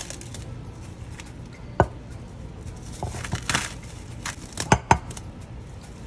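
Plastic cling wrap crinkling as it is peeled off a glass mixing bowl, with a few sharp clicks, two of them close together near the end.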